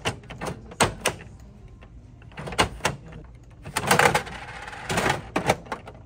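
Bandai gachapon capsule machine worked by hand, its dial turned with a run of sharp mechanical clicks and clunks. There are two longer rattling stretches about four and five seconds in.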